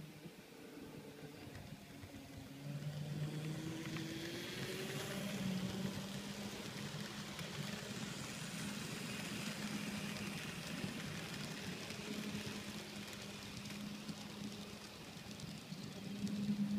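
N-scale model trains running on a layout: a steady low hum from the locomotives with a fine rattle of small wheels over the track, growing louder about four seconds in as cars roll past close by.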